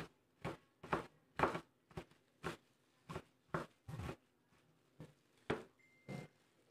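Kitchen knife chopping garlic cloves, a short knock about every half second at an uneven pace.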